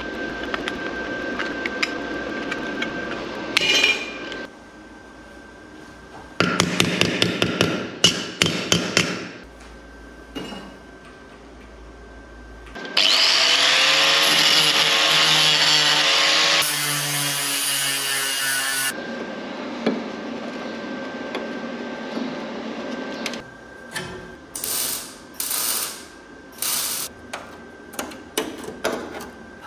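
Power tools working sheet metal, in several separate passes: first a steady run, then a loud run whose pitch falls, and near the end a string of short, sharp bursts.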